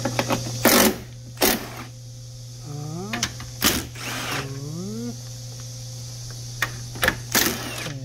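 Plastic bumper push-pin clips being twisted and pried out with a small flat screwdriver and a pin remover: several short, loud scraping snaps. Under them runs a steady low machine hum with a short rising whine every couple of seconds.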